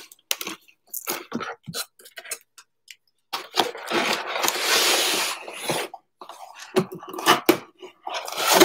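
A cardboard shipping box being handled and opened by hand: scattered taps and rustles, and a longer stretch of cardboard scraping and sliding against cardboard in the middle.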